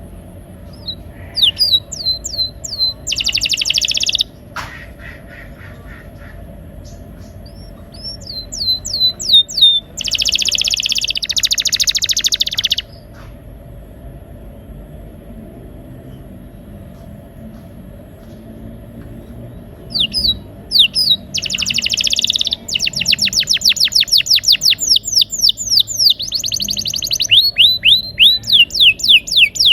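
Canary singing in three bursts separated by pauses: chains of quick falling whistled notes and dense buzzy rolling trills, ending in a long run of rapid repeated notes.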